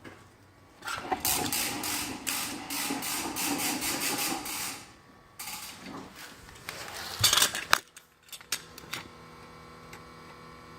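Loud rustling and clattering for several seconds, with a few sharp clicks near the eight-second mark. From about nine seconds a steady multi-tone hum sets in: the electric fuel pump of a 2016 Subaru WRX STI running with the engine off, its normal pressure test.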